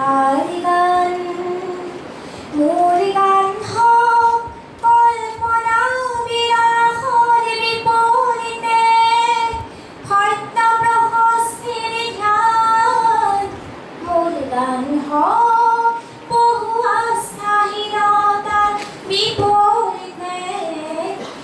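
A young girl singing a song solo into a microphone: one voice in phrases of long held notes that slide between pitches, with short breaks for breath.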